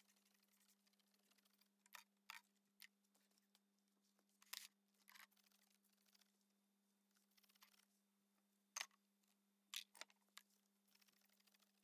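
Faint, short hissing squirts from a hand trigger-spray bottle: rust converter sprayed onto a rusty steel bench vise, about eight squirts at uneven intervals.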